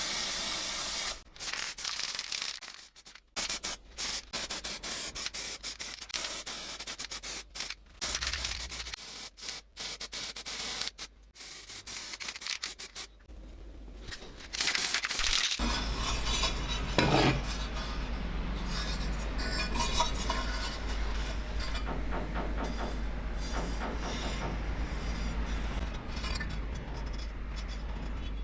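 Repeated abrasive rubbing strokes, as in hand sanding or filing a metal part, broken by short pauses. About halfway through, the rubbing becomes continuous and a steady low hum comes in underneath.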